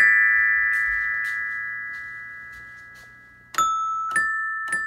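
Animated bear-band musical toy striking its glockenspiel's metal bars: a chord rings out and slowly fades, then three more notes are struck about half a second apart near the end.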